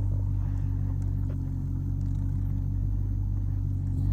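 Dodge Challenger R/T's 5.7-litre HEMI V8 idling steadily, heard from inside the cabin.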